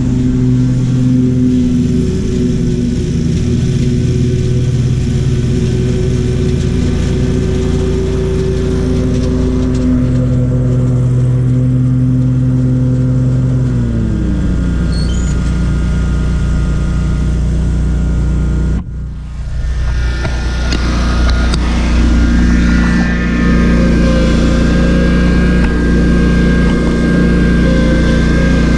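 Lawn mower engine running steadily. About 14 seconds in its pitch drops as it slows. Near 19 seconds there is a sudden break, then mower engine running again, now with a higher whine on top.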